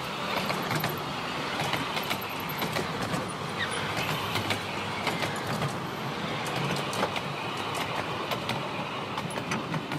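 Miniature-railway passenger carriages rolling past on the track: a steady rumble of wheels on rail with frequent irregular clicks from the wheels and couplings.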